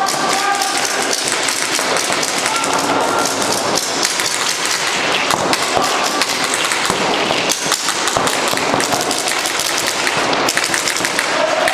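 Reball markers firing in quick, irregular strings of sharp shots during a match, with shots from several markers overlapping.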